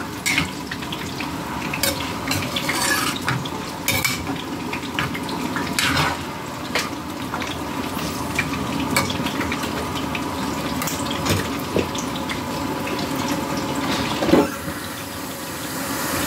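A silicone spoon stirring zucchini in watery tomato sauce in a nonstick frying pan, with scattered clicks and scrapes against the pan over the steady hiss of the simmering liquid. A sharper knock comes near the end as the spoon is set down.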